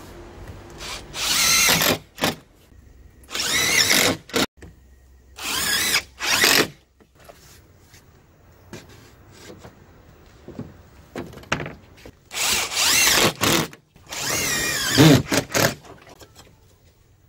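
Cordless drill/driver running in several short bursts, driving fasteners into fiber-cement siding window trim, its motor pitch wavering as it loads up; a quiet gap of about five seconds falls in the middle.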